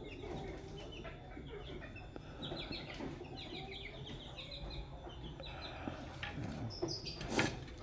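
Bantam chickens clucking, with runs of short, high calls in the middle, and a brief knock near the end.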